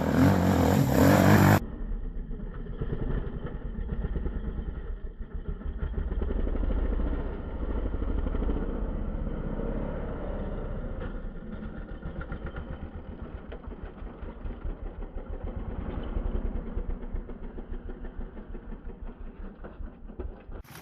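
Dirt bike engine running and being revved up and down, its low firing pulses swelling and fading with the throttle. The recording is dull and band-limited, as from an onboard action camera. A brief loud sound comes in the first second or two.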